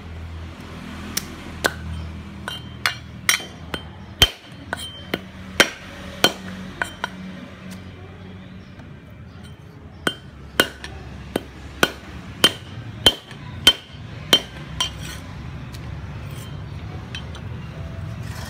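A steel cleaver chopping a knob of root on a thick wooden chopping board: sharp, uneven knocks of the blade striking the wood, a run of them in the first several seconds and another run of about ten chops in the middle, with a pause between.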